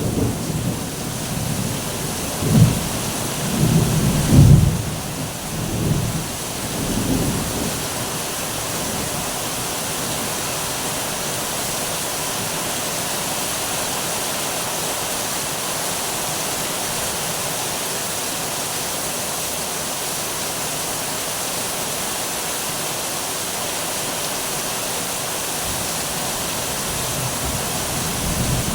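Heavy rain falling steadily, with thunder rumbling several times over the first few seconds and another low rumble starting near the end.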